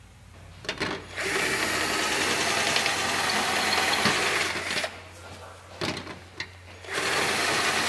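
Cordless drill with a step drill bit (unibit) cutting through thin aluminum sheet, enlarging a corner hole to 5/8 inch. It runs steadily for about three and a half seconds, stops with a few clicks, then starts a second run near the end.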